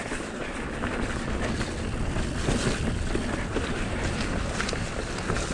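Mountain bike descending a wet dirt trail: wind rushing over the action camera's microphone and tyres rolling on the ground, with a few short clicks and rattles from the bike.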